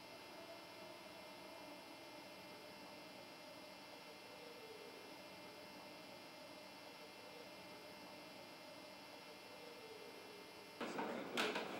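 Faint, steady electrical mains hum made of many steady tones. About a second before the end it gives way to louder room noise with a few sharp clicks.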